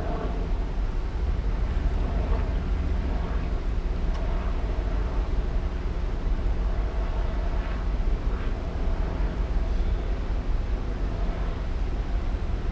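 A slow line of cars and SUVs rolling past: a steady low rumble of engines and tyres, with a few faint swells as individual vehicles pass.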